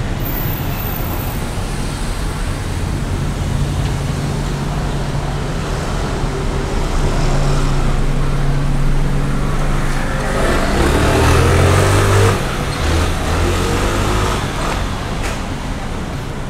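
Street traffic: motor vehicles running and passing close by, with a steady low engine hum that swells to its loudest about two-thirds of the way through.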